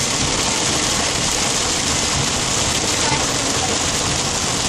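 Heavy rain falling on a car's roof and windshield, heard from inside the car as a steady hiss.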